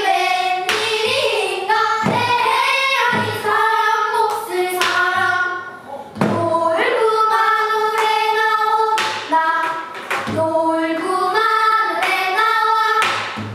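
A children's chorus singing pansori together, with held, wavering notes and sharp percussive strokes between phrases. The singing breaks off briefly about six seconds in.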